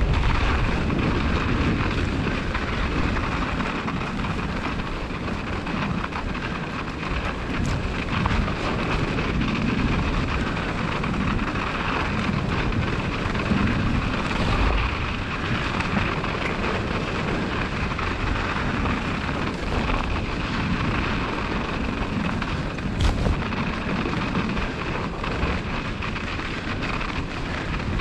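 Wind rumbling on the microphone over the steady hiss of a bicycle rolling along a snow-covered track, with a couple of sharp knocks from bumps.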